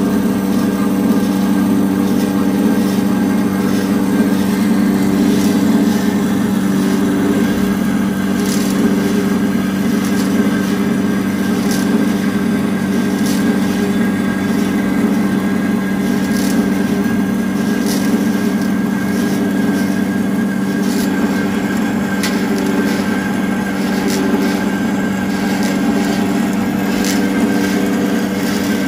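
Marvel Series 8 Mark II vertical band saw running steadily while its blade cuts through a clamped steel angle, a steady hum with scattered sharp ticks.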